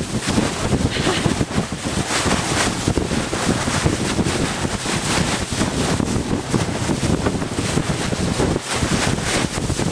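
Wind buffeting the microphone steadily, over the wash of the sea around a small open boat.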